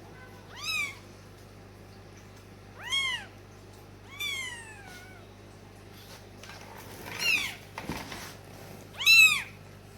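A cat meowing five times, short arching calls spread a second or two apart, one of them a longer call falling in pitch, the last one the loudest.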